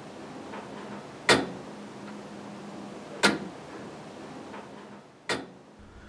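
Turret clock movement by Leeson and Son ticking: three sharp ticks about two seconds apart that echo around the clock room, over a low steady hum.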